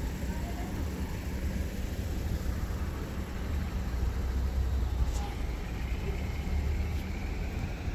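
City street traffic: a steady low rumble of cars that swells and fades in the middle as a vehicle passes, with a couple of faint clicks.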